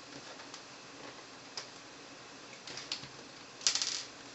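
Small clicks and taps from handling a laptop's plastic screen housing and a small screwdriver, a few single ticks and then a short rattle of quick clicks about three and a half seconds in.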